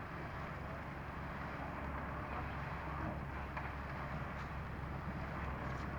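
A steady low mechanical hum with a noisy background, and a few faint clicks over it.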